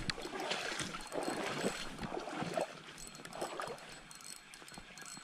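Shallow lake water splashing and sloshing at the shore in a few irregular bursts, dying down near the end.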